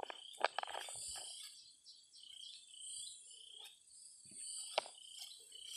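Insects in the grass buzzing in a steady high-pitched drone that swells and fades every second or two, with a few short high chirps over it. A sharp click sounds about five seconds in.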